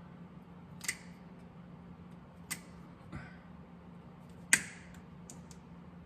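Small metal tools and parts handled on a workbench: four sharp clicks and knocks, the loudest about four and a half seconds in, with a few fainter ticks, over a steady low hum.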